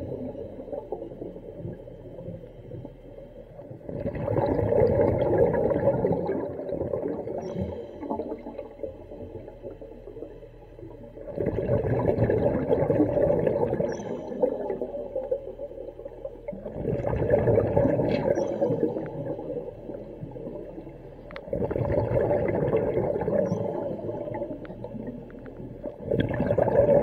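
Diver breathing underwater through the second-stage regulator of a hookah rig: five bubbly exhalations, one about every five to six seconds, with quieter inhalations between.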